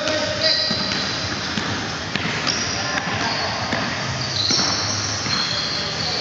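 Basketball being dribbled and sneakers squeaking on a hardwood gym floor, several short high squeals, with players' voices.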